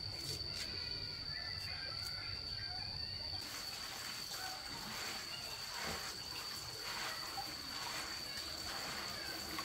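A steady high-pitched whine throughout; about a third of the way in, water starts splashing and trickling in short repeated pulses.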